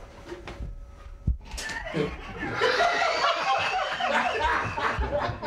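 Several people laughing, breaking out about two seconds in and growing louder, just after a single sharp thump.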